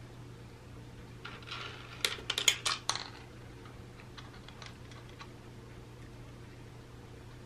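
Dry cat kibble and the plastic of a Catit Senses 2.0 Food Tree clattering as a cat noses into it. A quick run of about eight sharp clicks comes about two seconds in, then a few fainter clicks a couple of seconds later.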